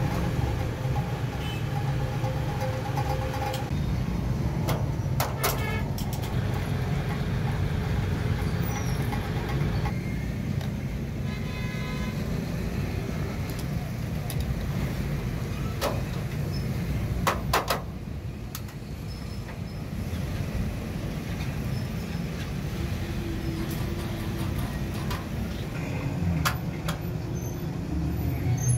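Steady low rumble of motor traffic or an engine running, with a few sharp clicks and knocks as wooden spacers and metal parts of a welding transformer are handled.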